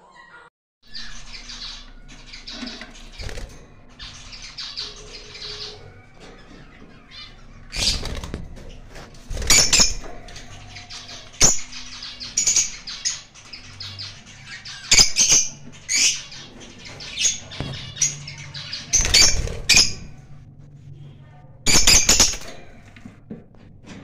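Small caged parrots (lovebirds and ringneck parakeets) chirping, with repeated short, shrill calls and several loud screeches, starting about a second in.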